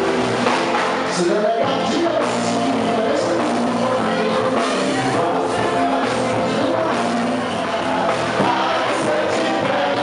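Band music with a singing voice over the instruments.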